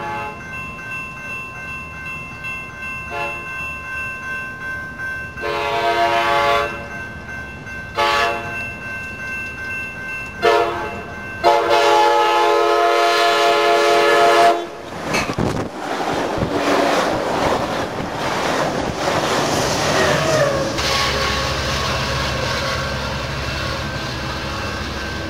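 Passenger-train air horns, the five-chime K5LA type, sounding several blasts for a grade crossing, from short toots to a held blast of about three seconds. A diesel passenger train then passes close by with a loud rushing rumble, which settles into a steady locomotive drone near the end.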